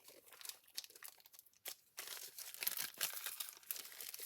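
Packaging and stiff paper cards crinkling and rustling as they are handled, in a run of short, irregular crackles.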